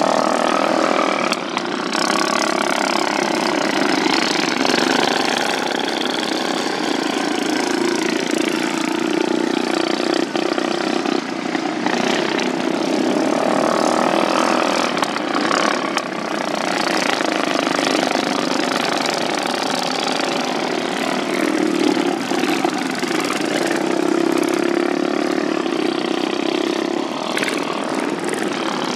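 Several racing riding lawn mowers with flathead engines running laps at racing speed. The engine note swells and fades as the machines pass and round the turns.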